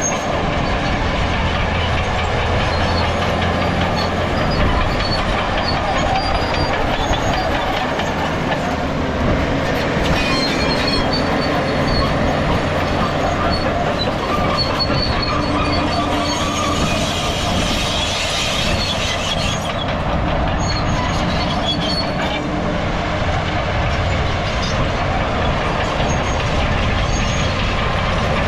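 Crawler bulldozer working: the diesel engine running under load while the steel tracks clank and give short high squeals now and then.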